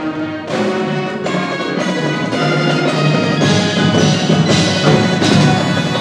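High school marching band playing: sustained brass chords over percussion, with the front ensemble's keyboard percussion and timpani. The music builds louder about halfway through.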